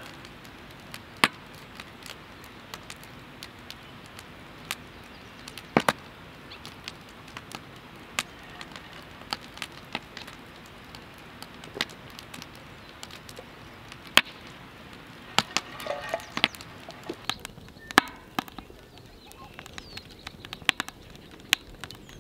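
Wood fire crackling in a Solo Stove Ranger steel fire pit, with irregular sharp pops about once a second.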